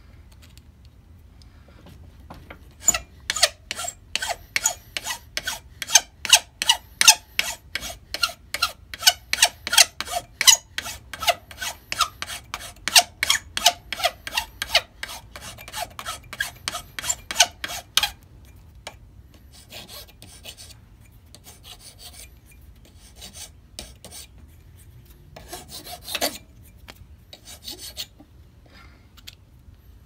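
Hand file rasping across the edge of a small metal plate clamped in a bench vise: even strokes about twice a second starting about three seconds in, then after some fifteen seconds lighter, scattered strokes.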